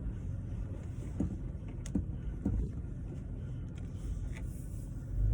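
A vehicle crawling slowly over a bumpy dirt trail: a steady low engine and road rumble, with a few short knocks from the bumps.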